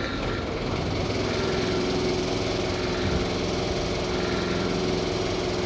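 A large engine running steadily at constant speed, with an even hum and a steady tone.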